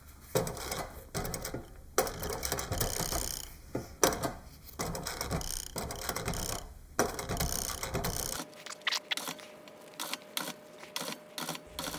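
Sewing machine stitching leather piping in short runs of a second or two, stopping and starting again. In the last few seconds it changes to a series of quick separate clicks.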